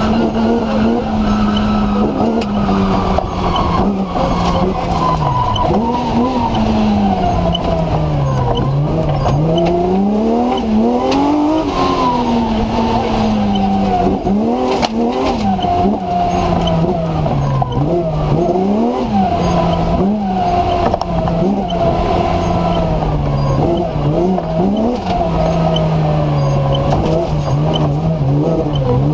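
BMW M3 engine of a TMC off-road racer heard from inside the cabin, revving up and dropping back over and over through gear changes and lifts off the throttle. Scattered sharp knocks come through the body, loudest about halfway through.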